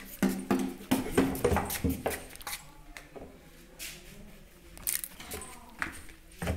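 Empty plastic bottle crinkling and knocking as a Labrador puppy bites and pushes it about: a quick run of sharp clicks and taps over the first two seconds, quieter in the middle, with a couple more knocks near the end.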